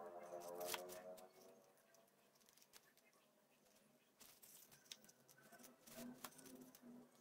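Faint clicks and rustles of hand-sewing: a needle worked through a shoe strap and elastic band and the thread drawn through, with the shoe handled in between. A brief faint pitched hum sounds in the first second.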